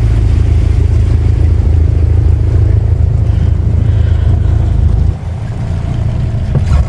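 Hired canal boat's engine running steadily with a low, even rumble, easing off briefly about five seconds in before picking up again.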